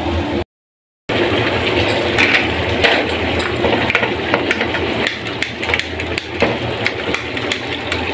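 Stovetop cooking: a large pot of rice boiling hard on a gas burner, with a wooden spoon clicking and knocking in a wok of curry. The sound cuts out completely for about half a second near the start.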